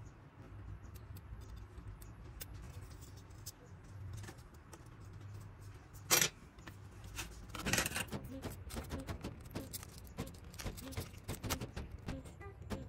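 Small tools and parts clicking and lightly clinking during hand repair work on a tablet, over a low steady hum. There is a short loud noise about six seconds in, another about eight seconds in, and denser clicking after that.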